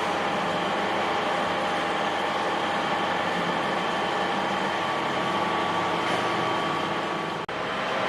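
A motor-driven machine running steadily, a continuous hum with several steady tones; it drops out for an instant near the end.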